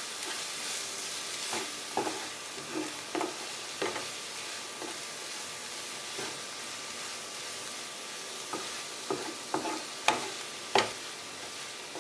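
Onion-tomato masala sizzling in a nonstick kadai as a spatula stirs it, with a scatter of short sharp taps and scrapes of the spatula against the pan. The spice powders are being sautéed until their raw smell cooks off.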